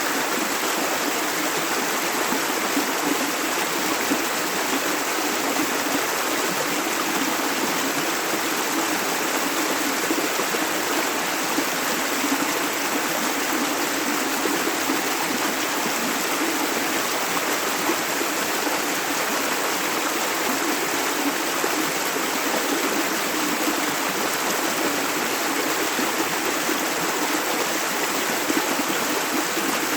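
A shallow river running steadily over stones, a constant rushing and babbling of water.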